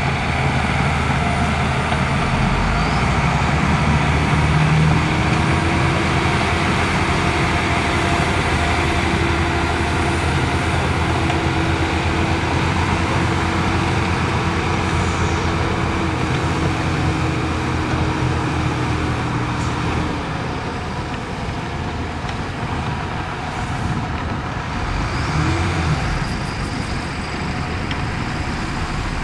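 Heavy diesel earthmoving machinery running steadily under load, with a steady whine held from about five seconds in to about twenty seconds.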